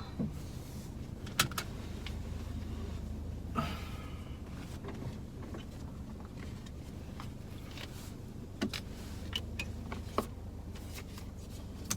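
Inside a parked Genesis GV70 with the car still switched on: a steady low hum, with scattered clicks from the cabin controls and a brief whir about three and a half seconds in.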